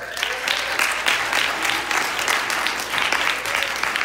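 Audience applauding: dense clapping that starts suddenly and keeps up steadily.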